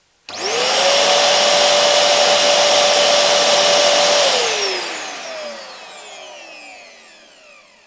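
Wet/dry vacuum cleaner switched on: its motor quickly spins up to a steady whine over loud rushing air, and the sound level meter beside it reads about 85 dB. A little after four seconds it is switched off, and the whine falls away as the motor winds down and fades.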